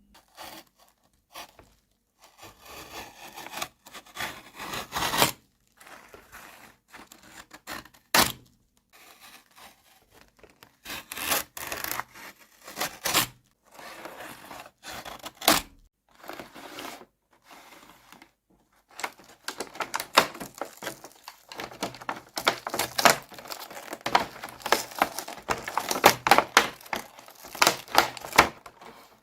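Miniature plastic toy kitchen pieces and their packaging being handled: irregular rubbing and rustling with sharp clicks and taps. It becomes busier and louder about two-thirds of the way in.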